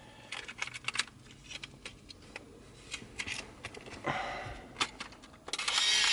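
Scattered small clicks and taps of a Ricoh FF70 35mm point-and-shoot being handled as film is loaded. About five and a half seconds in, the camera's film-advance motor starts with a loud, steady whirr as it auto-loads the film.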